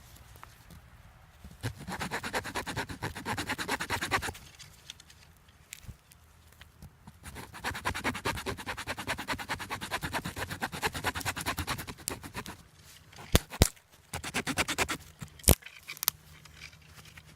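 Rapid rasping scrapes in two long runs, the second longer, followed by a few sharp separate clicks.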